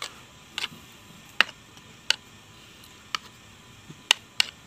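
Metal spoon clinking against a bowl while stirring and scooping rice porridge: about six sharp clinks at irregular intervals.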